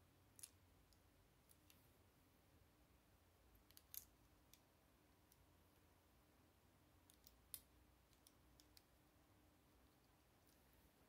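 Plastic Lego bricks clicking as they are handled and pressed together by hand: scattered faint clicks, with three sharper snaps about half a second in, around four seconds and around seven and a half seconds.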